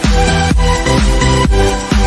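Electronic dance music with a steady beat of about two beats a second over a heavy bass line.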